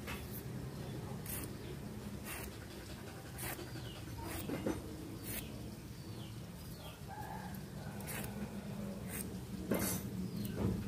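Sharp, light clicks about once a second as a small blade scrapes the thin enamelled copper lead wires of a subwoofer voice coil, over a steady low hum. A few bird calls can be heard in the background.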